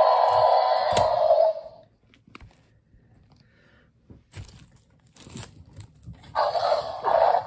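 Electronic roar of a Jurassic World Dominion Thrash 'n Devour T-Rex toy, played through its small built-in speaker, stopping about a second and a half in. A few light clicks and knocks follow as the figure is handled, then a second roar starts near the end.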